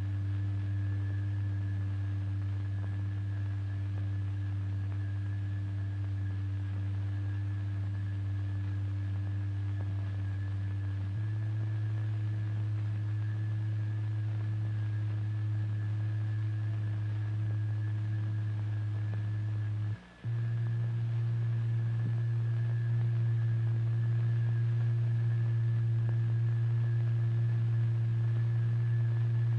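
A steady, low electronic sine tone, the vibration signal that drives the fluid into wave figures, with a faint high whine above it. It steps up in pitch about a third of the way in, cuts out for a split second about two-thirds through, and comes back a step higher and slightly louder.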